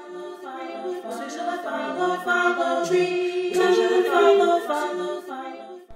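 A cappella vocal music: sung notes held and moving in steps, cut in abruptly and cut off just before the end, with no instruments.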